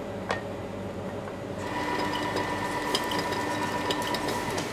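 Supermarket checkout conveyor belt starting about a second and a half in and running with a steady motor whine, over a low store hum, with a few light clicks.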